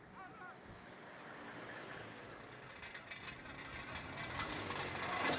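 Pickup trucks driving past on a road, their engine and tyre noise growing steadily louder as they approach, with the nearest passing close near the end.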